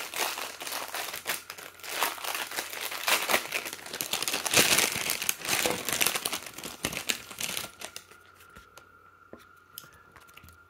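Plastic packaging crinkling and tearing as it is handled, a dense run of irregular crackles that dies down about eight seconds in.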